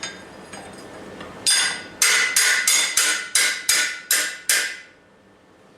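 Hammer striking steel in a quick series of about nine ringing blows, roughly three a second, driving the post leg vise's yoke and spring into place. The blows stop about a second before the end.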